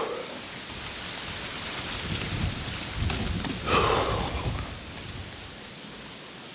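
Wind gusting across the microphone, a rushing hiss with heavy low rumbling buffeting that builds and peaks in the middle, then dies down, with a couple of brief rustles.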